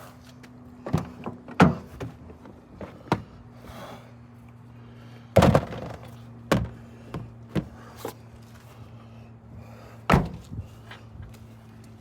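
A series of irregular knocks and thuds, the loudest about five and a half seconds in and another near ten seconds, over a steady low hum.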